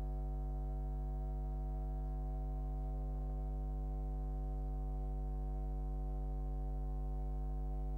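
Steady electrical mains hum: a low buzz with a stack of evenly spaced overtones, unchanging in pitch and level, with no game sound.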